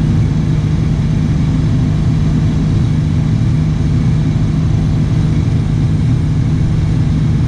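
Knikmops 100 Tele mini loader's engine running steadily at constant speed, driving the hydraulic post hole auger as it bores into loose sand. A constant low hum with no change in level.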